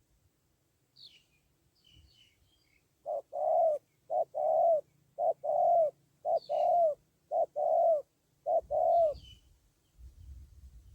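Spotted dove cooing: six two-note coos, a short note then a longer one, about one a second, starting about three seconds in. Faint high chirps of small birds come and go around them.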